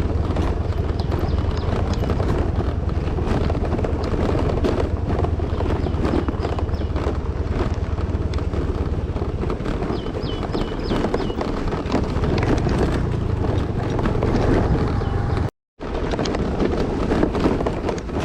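Scooter riding over a rough, stony hill track: the engine runs steadily under constant rattling and knocking from the bumps, with wind on the microphone. The sound cuts out for a moment near the end.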